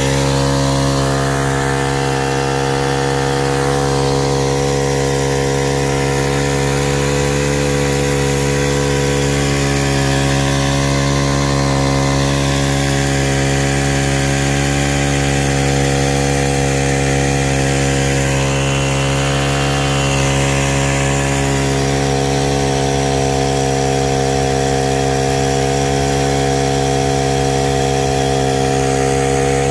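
Small petrol engine of a backpack engine spray pump running at a steady speed, driving the pump while the turbo spray gun throws a long jet of water. The engine note holds one unchanging pitch, with a hiss of spray and engine noise over it.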